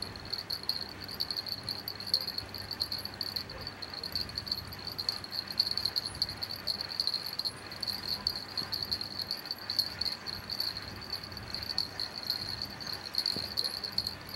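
Crickets chirping in a steady, fast-pulsing high trill that never lets up, with a fainter, higher insect trill above it.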